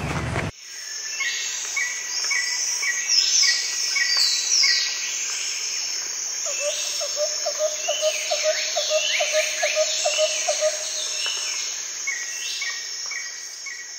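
Birds singing in a garden: repeated falling chirps and short whistled notes about three a second, with a quicker run of lower pulsed notes through the middle, over a steady high insect drone. It cuts in about half a second in and fades near the end.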